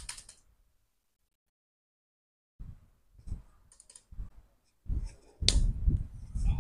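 A few clicks of a Jumper EZbook X3 laptop key being pressed, then about two seconds of dead silence. After that come irregular soft thumps and clicks of a handheld camera being moved about.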